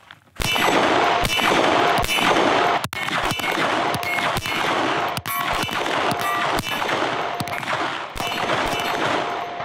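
Semi-automatic pistol fired in a steady string of shots, about two a second, with steel targets ringing with a clang after hits.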